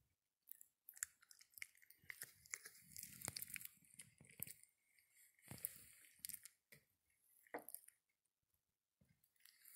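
Faint rustling and crackling with scattered clicks as a hand moves a plate and tears apart a soft bread sandwich on a tabletop covered in plastic sheeting.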